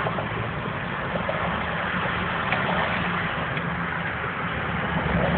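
Steady engine and road hum heard inside a car's cabin as the car creeps along in slow, heavy traffic.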